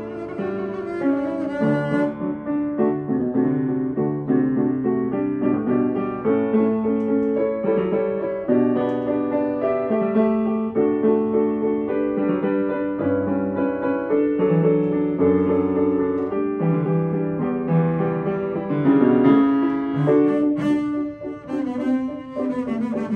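Double bass played with the bow, accompanied by a grand piano. Partway through, the bass rests while the piano plays on its own, and the bowed bass comes back in near the end.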